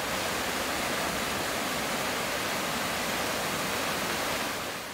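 A small waterfall pouring down a rock face into a shallow creek pool: a steady rush of falling water, easing off slightly near the end.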